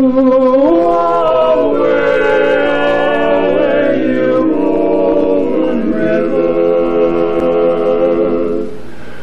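Male barbershop quartet singing a cappella in close four-part harmony, holding sustained chords that shift every second or two. The chord breaks off near the end for a brief pause.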